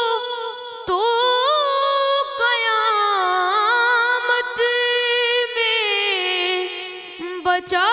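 A boy's voice singing a naat unaccompanied into a microphone. He holds long notes with winding ornaments and breaks off briefly for breath about a second in and again near the end.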